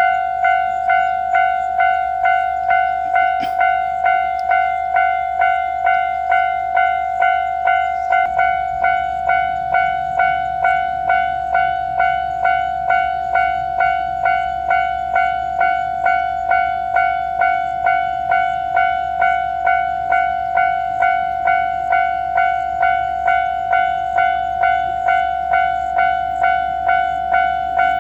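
Japanese level-crossing warning bell ringing its steady 'kan-kan' at about one and a half strokes a second. A low rumble joins it about eight seconds in and runs on under the bell.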